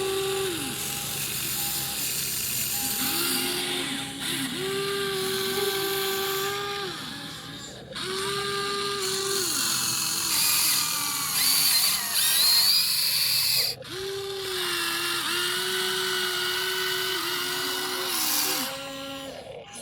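Small electric gear motors of a toy RC excavator whining in repeated runs of one to three seconds. Each run glides up in pitch as it starts and drops as it stops, over a steady high gear hiss.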